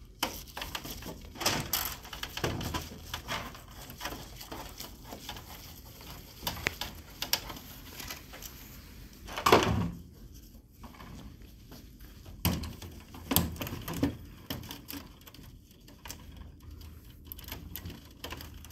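Irregular clicks, knocks and plastic rattles of an HP 4001 laser printer's covers and parts being handled during fuser removal, with one louder knock about halfway through.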